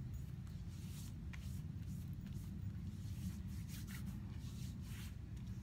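Hands rubbing and patting over facial skin, a series of faint, irregular soft scratchy strokes, over a steady low rumble.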